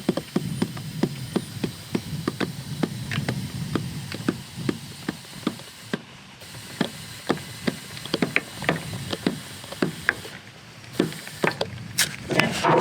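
Air compressor filling a riding mower tire's inner tube: a low hum with a string of sharp clicks, about two or three a second, which thin out after a few seconds. A louder rustling clatter near the end.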